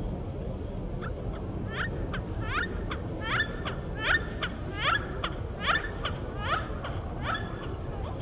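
A bird calling a rapid series of short, sharp notes that sweep in pitch: a strong note about every second with fainter ones between. The calls start about a second in and stop near the end, over a steady low rumble.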